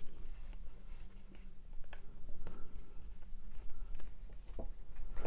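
Fingers working a Blu-ray disc on the plastic centre peg of a cardboard digipak: faint rubbing against the card with scattered small clicks.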